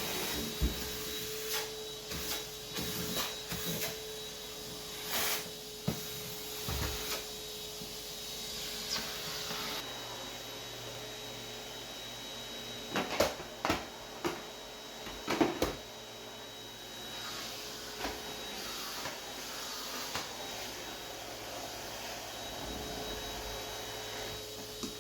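Vacuum cleaner running steadily over the kitchen floor, with scattered knocks and clacks of the head bumping against floor and cabinets, several close together about two-thirds of the way through.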